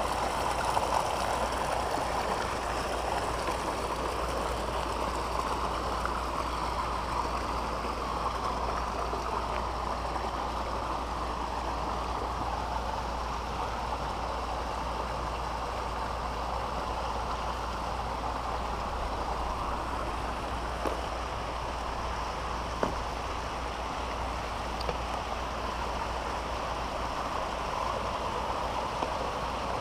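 Steady rush of water flowing into concrete fish-hatchery rearing ponds.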